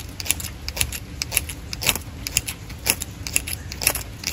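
Striker scraped repeatedly down a magnesium fire-starter rod to throw sparks onto tinder: short, sharp rasping strokes at about two a second.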